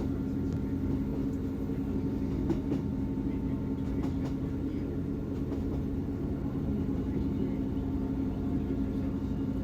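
Class 158 Sprinter diesel multiple unit running along the line: a steady engine drone over the rumble of wheels on rail, with a few faint clicks.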